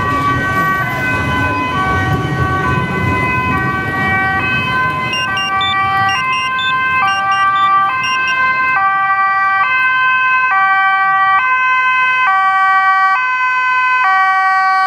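Dutch police van's two-tone siren, alternating between a high and a low pitch about once a second and growing clearer as the van approaches. Crowd and traffic rumble sits under it in the first few seconds.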